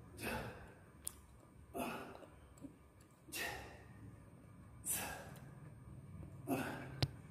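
A man's forceful exhalations, five in a row, about one every one and a half seconds: the breathing of effort with each repetition of a one-arm overhead dumbbell triceps extension. A single sharp click comes near the end.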